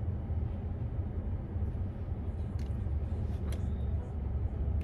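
Steady low rumble inside a car, with a few faint clicks about halfway through.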